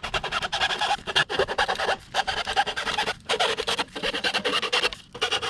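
Fast back-and-forth rasping of a blade cutting through a diesel heater's warm-air duct hose, in several runs of strokes with short pauses between them.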